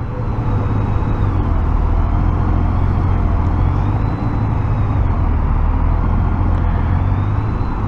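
A 2008 Honda Gold Wing GL1800's flat-six engine running steadily under way, with road and wind noise.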